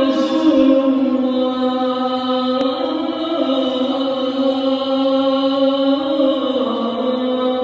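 A single man's voice chanting Islamic devotional recitation in long held notes. The pitch steps down near the start, up about three seconds in, and down again near the end.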